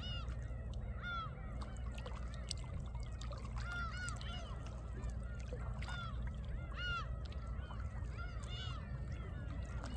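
Seawater lapping among shoreline rocks as a steady low wash, with birds repeatedly giving short, rising-and-falling honking calls over it, often several in quick succession.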